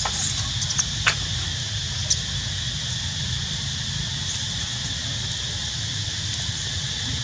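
Steady, high insect drone running without a break over a low steady rumble, with a few short sharp clicks about one and two seconds in.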